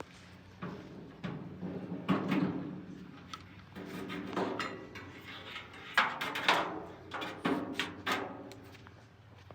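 Irregular knocks, scrapes and clatters of hard objects being handled, in several bunched groups.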